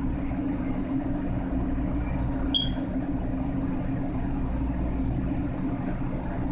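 Steady low mechanical hum of commercial kitchen equipment running, with one brief high chirp about two and a half seconds in.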